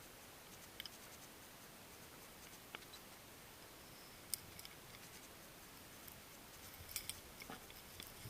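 Faint underwater ambience: a low steady hiss with scattered sharp clicks and ticks, the loudest about four seconds in and a small cluster near the end.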